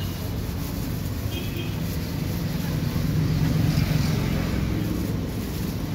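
Low, steady rumble of road traffic that swells louder for a second or two in the middle, as a vehicle passing close.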